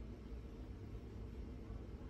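Domestic cat purring with a low, steady rumble while its chin and cheek are scratched.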